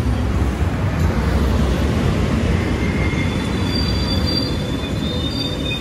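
Amtrak Superliner bilevel passenger cars rolling past: a steady heavy rumble of wheels on rail. About halfway through, thin high-pitched squeals start to ring over it.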